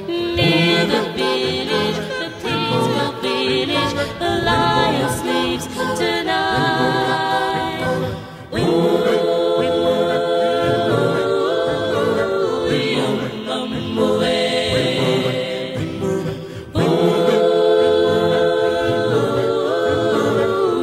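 Background music: an a cappella choir singing.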